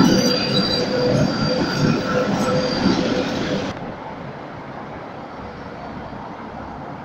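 Tatra T3 tram passing close on a curve, its wheels squealing on the rails in several steady high tones over a heavy rolling rumble. After a little over three seconds the sound cuts off abruptly to quieter, even street background noise.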